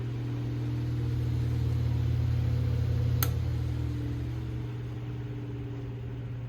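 1940s Westinghouse 12-inch metal desk fan running with a steady low electric-motor hum. The hum swells and eases back, loudest about three seconds in. A single sharp click comes at the peak.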